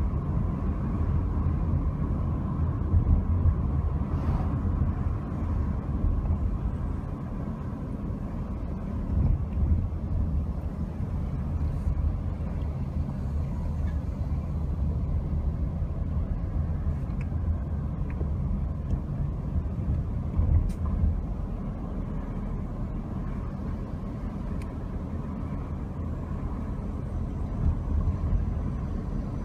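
Steady low rumble of a car being driven: engine and tyre noise on the road, with a few faint clicks.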